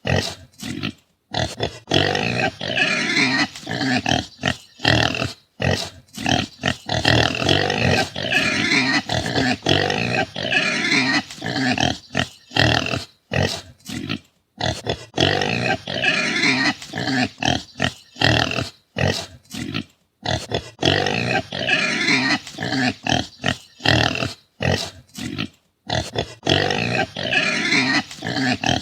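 Pigs grunting and calling: a dense, near-continuous run of short, rough calls broken by brief gaps.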